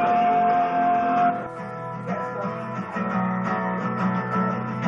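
Music: the instrumental break of a rock song, with guitar and bass and no singing. A long steady note is held for the first second or so.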